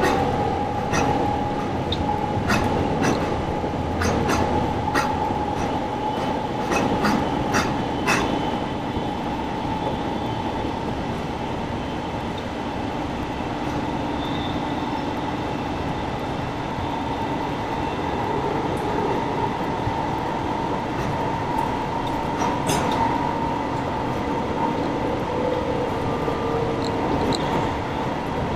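Inside the car of an electric commuter train running between stations: a steady rumble of wheels on the rails with a steady whine over it. A quick run of sharp clicks comes in the first eight seconds or so, and a few more about two thirds of the way through.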